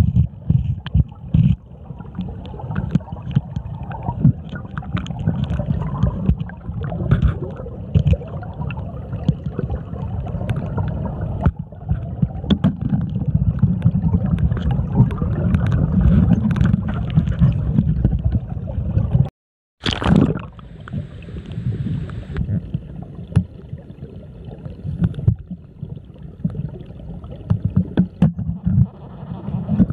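Muffled sound of river water heard through a submerged camera: a constant low rumble of moving water with many small knocks and clicks. About two-thirds of the way through it cuts out for a moment, then comes back with a short splashy burst.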